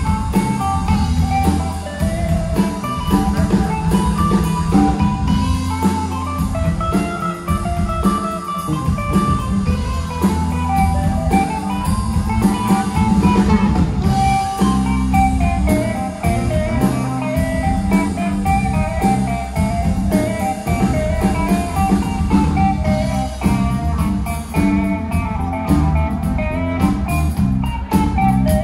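A band playing a blues-style number: guitar lines over a steady bass and drum kit.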